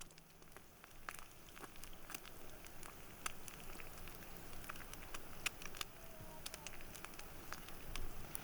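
Campfire crackling: irregular sharp pops and snaps over a soft steady hiss.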